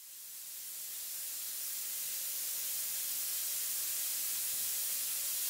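Compressed air hissing steadily from an open air line, fading in over the first couple of seconds and then holding level.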